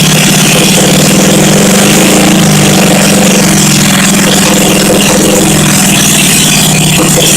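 Freshly rebuilt 1971 Honda SL350 parallel-twin four-stroke engine running loud and steady, its revs lifting a little about two seconds in and easing back.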